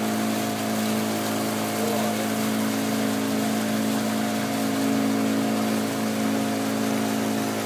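Boat engine running at a steady, even pitch, with a constant hiss over it.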